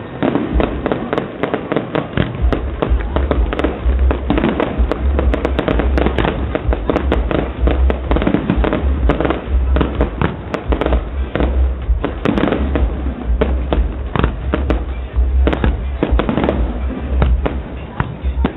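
A fireworks display firing nonstop: a dense run of sharp bangs, pops and crackles from shells and rockets bursting overhead, over a deep low rumble.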